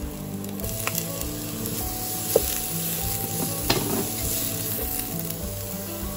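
Minced ginger, garlic and shallot sizzling gently in hot oil on low heat, stirred with a wooden spatula, with a few light knocks of the spatula against the pot.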